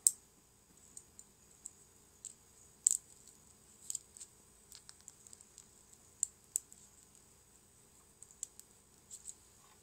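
Small sharp snaps and clicks, irregularly spaced, of thin 3D-printed support struts being cut and broken away from small model parts; the loudest come near the start, about three seconds in and about six seconds in.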